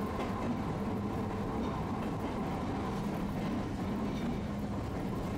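Tosaden streetcar running along its track, heard from inside the car: a steady running noise with a low hum.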